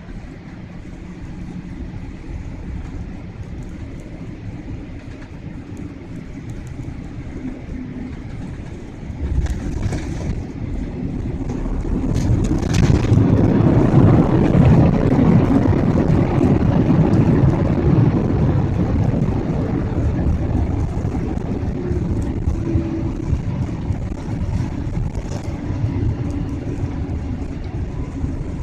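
Airliner cabin during landing: steady engine and airflow noise, a thump of touchdown about nine seconds in, then a much louder rush of jet engine reverse thrust and braking building a few seconds later and slowly easing off as the aircraft slows on the runway.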